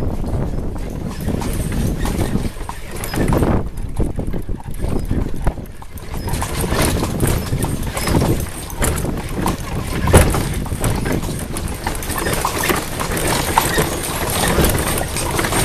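Hooves of a horse pulling a cart clip-clopping on a dirt lane, over a steady low rumble.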